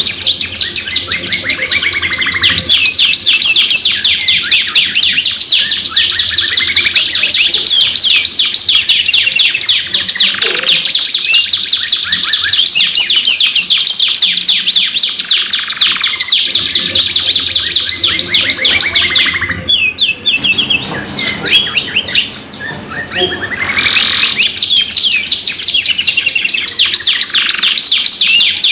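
Domestic canaries singing long, rapid rolling trills, one phrase running into the next almost without pause, with a brief lull about three-quarters of the way through.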